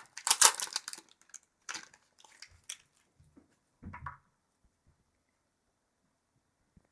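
Hockey card pack wrapper crinkling and tearing as it is opened: a run of rustling in the first second, then a few brief rustles up to about four seconds in.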